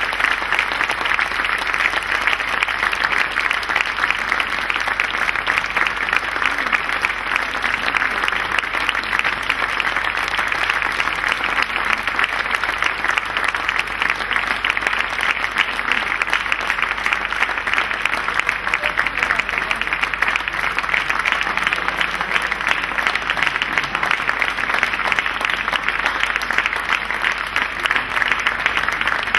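Theatre audience applauding steadily, a dense unbroken clapping for the performers' curtain call.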